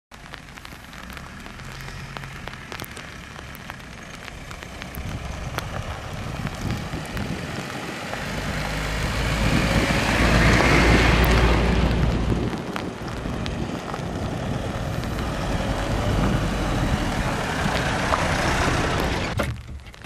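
Pickup trucks driving along a dirt track: steady tyre and engine noise that builds to its loudest about ten seconds in, as one is close by, then holds until it cuts off suddenly near the end.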